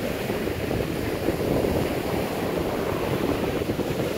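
Rough ocean surf breaking and washing up the beach in a steady rush, with wind buffeting the microphone.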